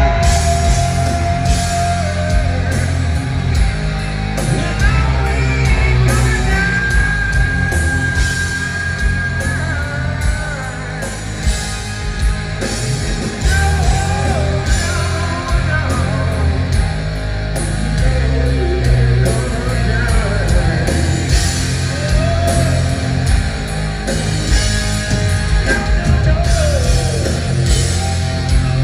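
Live heavy rock band playing loud through the PA: distorted electric guitars, bass and drums, with a sung lead vocal over them.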